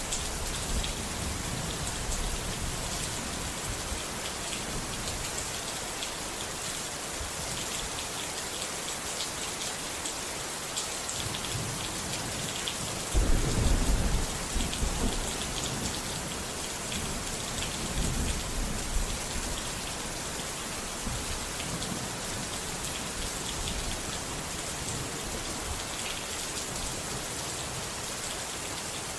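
Steady heavy rain, with a low roll of thunder about thirteen seconds in and a weaker rumble a few seconds later.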